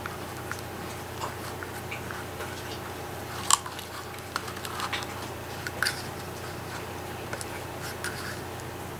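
Pleated paper medallion being handled and pressed with the fingers: sparse small crinkles and clicks, with one sharper click about three and a half seconds in, over a steady low hum.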